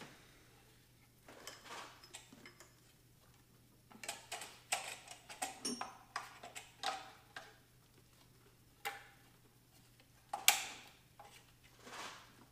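Hand work in a car's engine bay while an oil catch can's hose is fitted: scattered clicks, taps and light rattles of fittings and parts being handled, with one sharper click about ten and a half seconds in.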